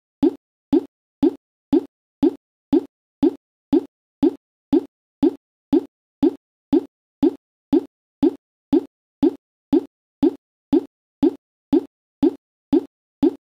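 A short, low plop-like blip repeated with machine-exact regularity, two per second, each one identical with silence in between: a looped electronic sound effect rather than anything handled in the room.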